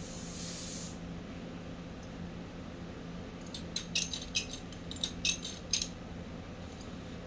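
A brief hiss of gas from a brazing torch, then a run of sharp metallic clicks from a torch striker being snapped over and over, with the torch not lighting.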